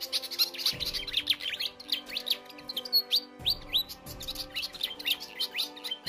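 Malaysian pied fantail (sikatan kipas) singing a fast run of high chirps, many of them falling in pitch, over soft background music.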